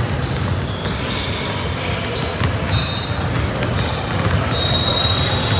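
Many basketballs dribbled at once on a hardwood gym floor, a dense, continuous patter of overlapping bounces in a large hall. Short high squeaks of sneakers on the court come through, the loudest lasting about a second near the end.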